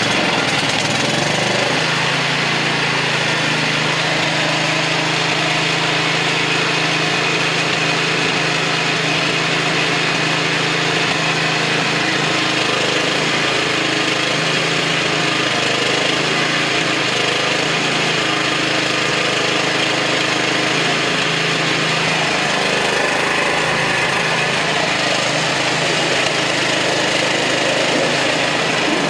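Craftsman DYT 4000 riding mower's 24-horsepower engine running steadily at a constant speed just after starting.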